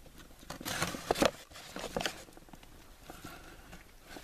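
Cardboard box of a compressed-air tank handled with gloved hands as it is picked up, set down and opened: a cluster of scraping, rustling knocks about a second in, another at about two seconds, then quieter handling.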